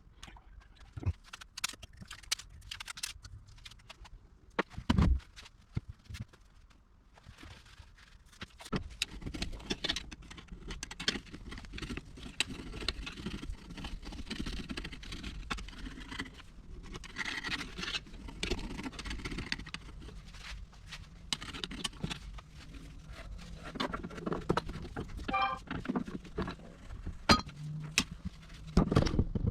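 Metal parts clinking, rattling and scraping as they are handled, sparse at first and then busy over a low steady rumble from about nine seconds in.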